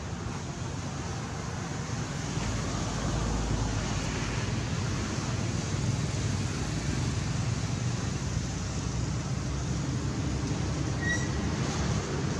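Steady outdoor background noise with a low rumble, a little louder after about two seconds, and one brief high chirp about eleven seconds in.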